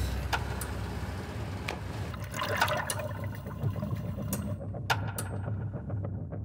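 Water splashing and rushing as a diver drops into the sea, over a steady low engine drone. About four and a half seconds in the hiss of the water drops away and the sound turns muffled, leaving the drone and a few sharp clicks.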